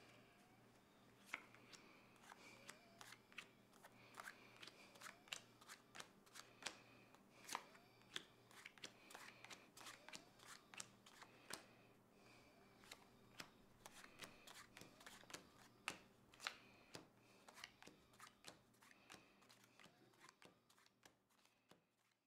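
Faint run of irregular light snaps and slaps: playing cards being handled and dealt one by one onto a wooden tabletop, over a faint steady hum.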